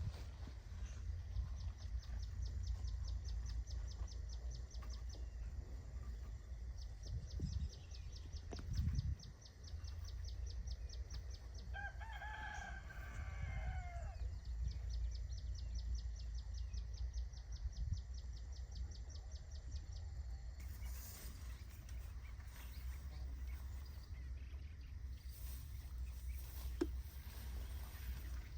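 A rooster crows once, a single call of about two seconds roughly twelve seconds in, over a steady low rumble. Runs of a fast, high pulsing trill come and go before and after the crow.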